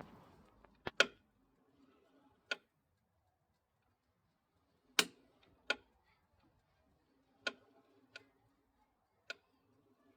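Irregular sharp clicks from around the clutch of a Honda SH350i scooter as it rotates forwards, about eight in ten seconds with uneven gaps. The owner suspects a fault left by the recall that replaced the driven face kit.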